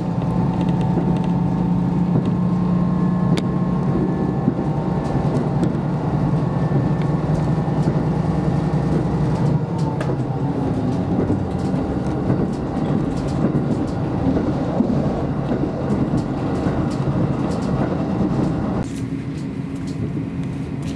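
KiHa 54 diesel railcar running, heard from inside the carriage: a steady low engine drone mixed with wheel and rail noise. Near the end the higher part of the noise drops away suddenly, leaving the low drone.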